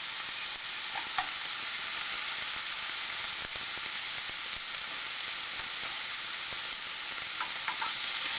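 Diced pork belly sizzling steadily in a hot frying pan, frying in the fat it releases with no oil added, while a spatula spreads and turns the pieces in the pan.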